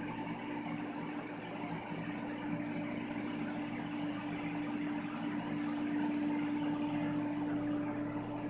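Amtrak Acela Express electric trainset humming steadily, with a few constant tones over a low rushing noise, growing a little louder about halfway through.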